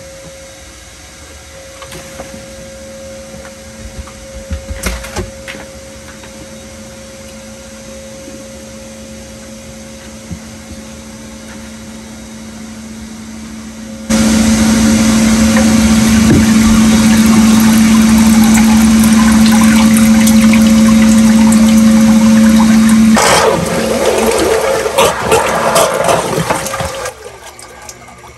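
Submersible sump pump switching on suddenly about halfway through and running loudly with a steady hum and a rush of water. After about nine seconds the sound turns rough and uneven for a few seconds as the pit is drawn down, then cuts off near the end.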